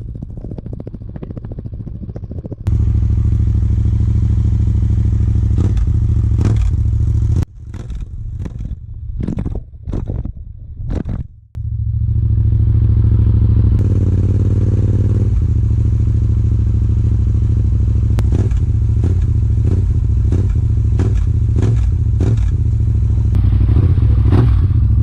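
Yamaha MT-07's parallel-twin engine running at a steady idle through an Akrapovic exhaust. A few seconds in, the sound drops out and comes back in short bursts, then settles to a steady idle again.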